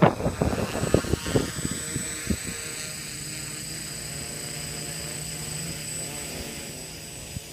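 Quadcopter's four electric motors and propellers hovering close by, with choppy, irregular thumps for the first two seconds or so. Then it settles into a steady buzzing hum whose pitch wavers as the motors adjust.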